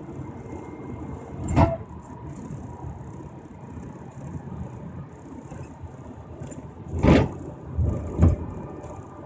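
Cabin noise of a 2001 Ford Explorer on the move, a steady low rumble with a faint steady whistle whose cause the owner cannot place. Three short thumps come through, about a second and a half in and twice near the end.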